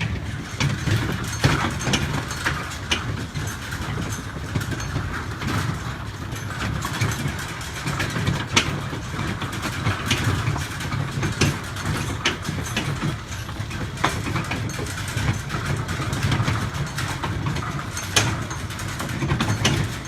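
A vehicle engine running steadily while towing, with irregular rattles and knocks from the wagon over the ground.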